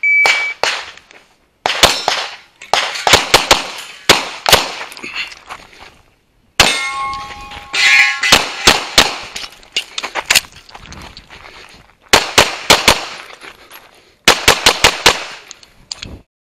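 Pistol shots fired rapidly in quick pairs and strings during an IDPA stage, opened by a short electronic shot-timer beep. About seven seconds in, a ringing tone sounds under the shots.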